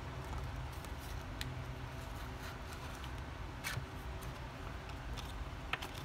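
A thin opening pick prying at the edge of a Samsung Galaxy A2 Core's back cover, making scattered light clicks and ticks, the sharpest near the end.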